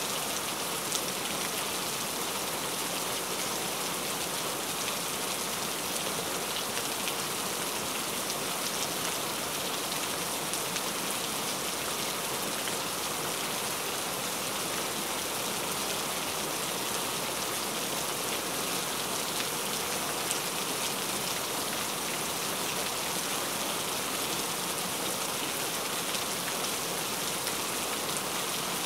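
Cauliflower kababs shallow-frying in hot oil in a pan: a steady sizzle with fine crackling.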